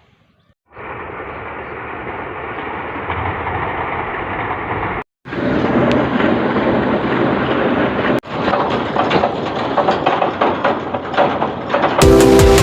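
A drilling machine running with a steady mechanical noise that stops abruptly about five seconds in and resumes louder and hissier. Near the end, electronic music with a heavy beat takes over.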